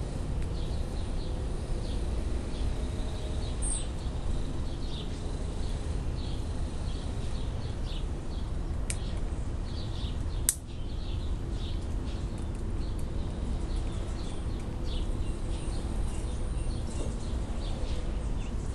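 A squirrel gnawing and cracking a walnut shell with its teeth: faint, irregular crunching and scraping over a steady low background rumble. A single sharp click about halfway through is the loudest sound.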